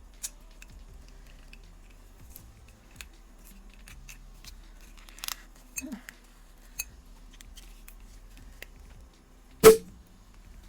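Bottle of sparkling wine being opened: small clicks and crinkling as the foil and wire cage are worked and the cork eased, then one loud cork pop near the end. The cork is held under its wire cage, so it comes out controlled rather than flying.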